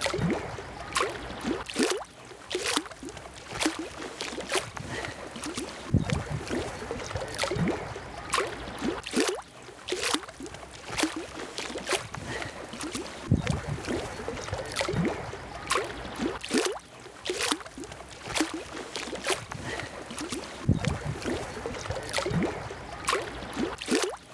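Pond water lapping and splashing in irregular little slaps around a floating, sealed plastic electrofisher case.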